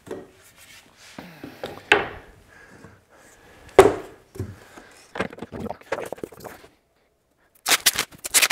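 Oak door-frame pieces knocking and clattering against a wooden workbench as they are handled, with a sharp knock about two seconds in and a louder one near four seconds, then a quick run of light clicks. Near the end a stiff perspex sheet rattles and flexes loudly as it is lifted.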